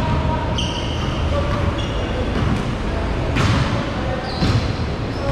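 Basketballs bouncing on a hardwood gym floor, with short high squeaks of sneakers on the boards, echoing in a large hall. The loudest impact comes about three and a half seconds in.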